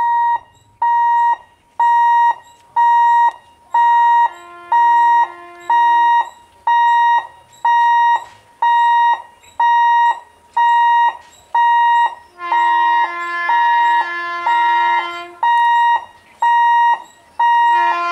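Railway level-crossing warning alarm beeping: a high electronic beep about once a second, each lasting about half a second. A lower horn tone sounds over it for about two seconds some four seconds in, and again for about three seconds from about twelve seconds in.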